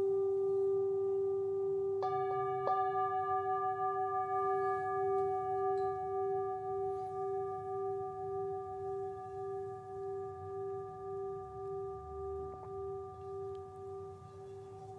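Singing bowl ringing with a steady, wavering hum. It is struck again about two seconds in and once more lightly just after, then slowly fades.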